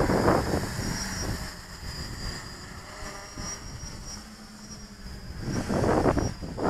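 Wind buffeting the microphone over the steady distant whine of an F330 quadcopter's brushless motors and propellers in flight, the wind rumble swelling louder near the end.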